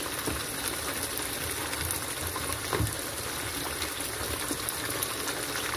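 Blended tomato sauce with onions simmering in oil in a wok: a steady bubbling sizzle as the sauce cooks down.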